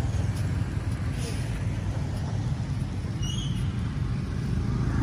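Steady low rumble of wind buffeting the phone's microphone outdoors, with a faint short high chirp about three seconds in.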